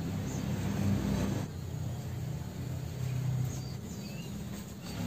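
A motor running with a steady low hum, and a few short bird chirps over it.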